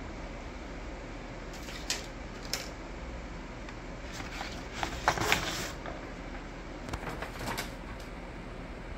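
Cardboard and paper being handled in a homemade puppet theatre as stick puppets and a painted backdrop card are moved: a few scattered light knocks and rustles, the loudest cluster about halfway through, over a steady room hiss.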